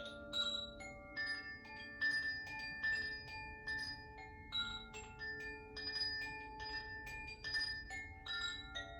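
Makino-style tuned chimes struck one note at a time in a slow, steady melody, about two notes a second, each note ringing on and overlapping the next.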